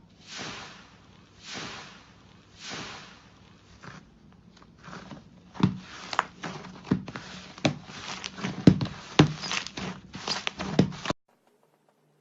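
Slime being handled: three soft squishes about a second apart, then, from about five seconds in, a quick run of sharp clicking pops as it is pressed and pulled. The sound stops abruptly near the end.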